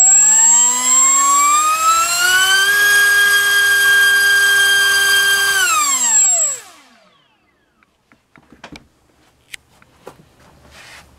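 MultiStar V-Spec 2205 2350kV brushless motor spinning a DYS 5x4 four-bladed prop on a 4-cell battery during a thrust test. Its whine rises in pitch over about three seconds, holds steady, then winds down and stops about seven seconds in, with a thin high whistle running above it throughout. A few light clicks and knocks follow.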